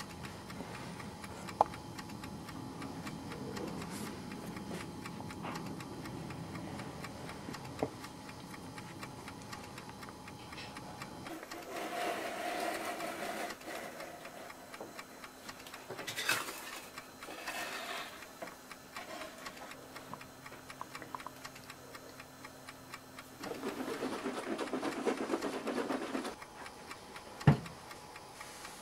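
Steady ticking, like a clock, with a few short stretches of handling noise and three sharp clicks; the loudest click comes near the end.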